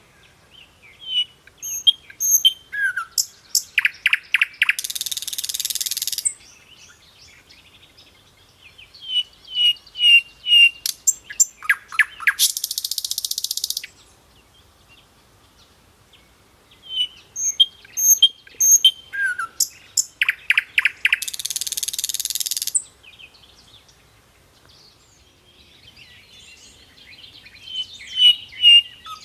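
Songbird singing: series of sharp chirps and quick clicky notes, each series ending in a harsh buzzy stretch of about one and a half seconds. The same song sequence comes round three times with short pauses between.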